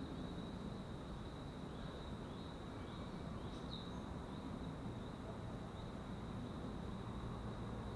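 Quiet outdoor ambience: a steady low hiss with a faint constant high tone, and a few faint short bird chirps about two to four seconds in.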